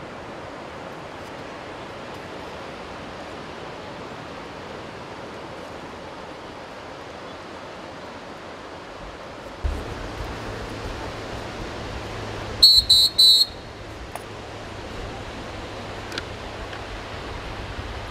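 Steady surf wash, joined about halfway by wind rumbling on the microphone. About two-thirds of the way in come three quick, shrill whistle blasts, the loudest sound here.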